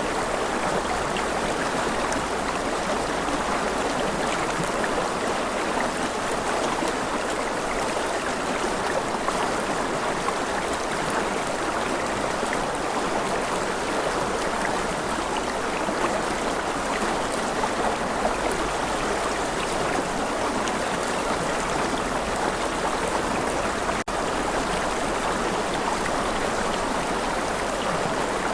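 A stream running steadily, an even rush and babble of flowing water with no let-up, broken only by a split-second dropout near the end.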